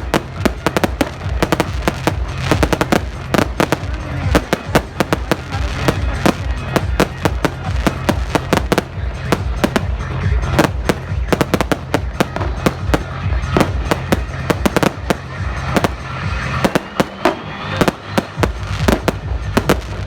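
Many fireworks going off at once in dense, irregular bangs and crackles, with a rising whistle of a launching rocket about fifteen seconds in.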